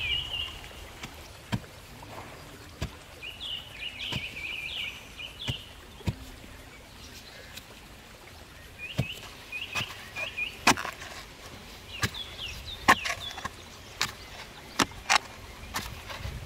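A bamboo pole knocking into hard clay soil as it is jabbed down to bore a hole. The knocks are irregular, sparse at first and coming more often in the second half. A small bird chirps in several short runs between them.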